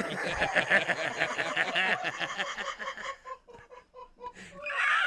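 A person making a raptor-like clucking screech in the throat while breathing in. It pulses rapidly for about three seconds, then drops to a few soft clicks, and a loud high screech starts near the end.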